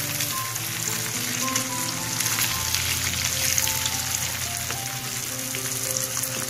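Semolina-coated sardines shallow-frying in hot oil, sizzling and crackling steadily.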